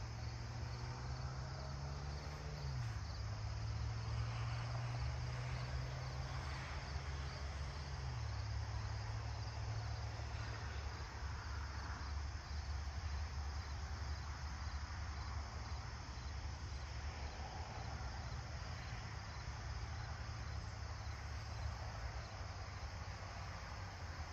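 Steady dawn chorus of crickets and other insects trilling. Underneath, a low mechanical drone from a distant engine drops in pitch twice, about 3 and 8 seconds in.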